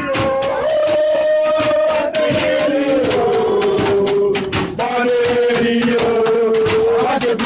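Singing in long held notes that slowly bend and glide downward, over many sharp clicks.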